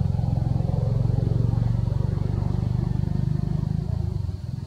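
An engine running steadily nearby, a low pulsing rumble that eases off slightly near the end.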